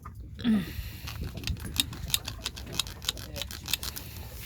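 Rapid, irregular clicking and tapping, several small sharp clicks a second, with a short pitched sound about half a second in.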